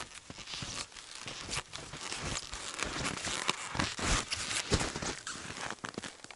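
Wide hunting skis crunching and scraping through dry, frozen snow in steady strides, getting louder as the skier comes closer.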